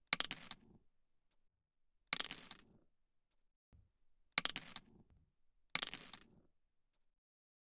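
Coins dropping and clinking four times, about one and a half to two seconds apart, each a sharp metallic chink with a short ringing tail.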